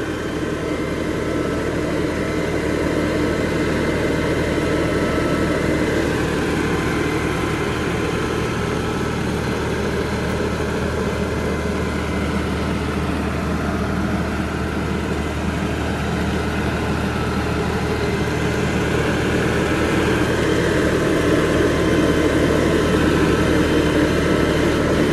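LS compact loader tractor's diesel engine running steadily while the tractor backs away and pulls forward to line its loader up with an attachment. It grows louder near the end as the tractor comes close.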